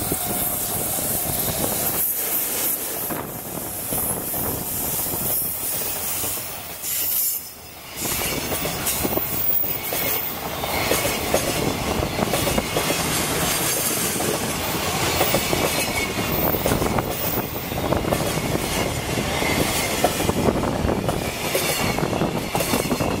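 EF65 electric locomotive and its container flat wagons rolling past at close range, the wheels clicking over the rail joints, with a high wheel squeal from about ten seconds in. Strong wind buffets the microphone.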